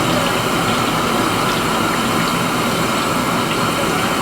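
Bhajiyas deep-frying in a pan of hot oil: a steady sizzle with faint scattered pops.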